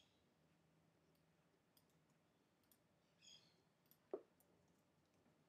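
Near silence broken by a few faint computer-mouse clicks, with a soft knock just after four seconds in.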